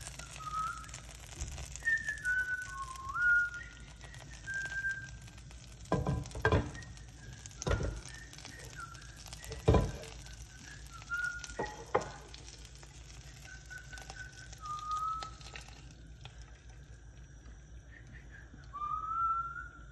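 Someone whistling a tune in short notes that step up and down, over faint sizzling of butter foaming in a frying pan. Several sharp knocks come in the middle, the loudest about ten seconds in.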